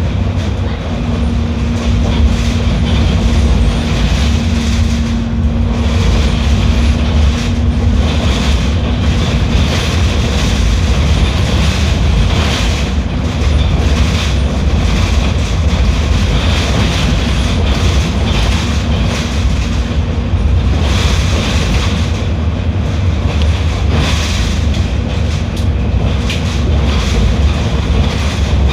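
Mercedes-Benz OF 1721L BlueTec 6 bus running under way: a steady, loud low rumble of engine and road noise with rattling. A steady hum sounds over it for several seconds near the start.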